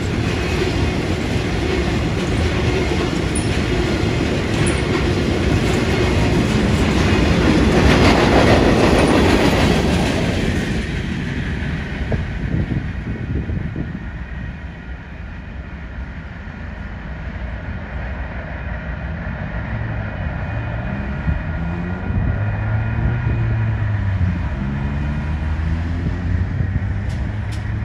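Union Pacific rail train's flatcars, loaded with long welded rail, rolling past with wheels clacking over the rail joints, loudest about eight seconds in and fading away by about eleven seconds as the last car clears. Later, road vehicles pull away across the crossing, with an engine revving up through its gears near the end.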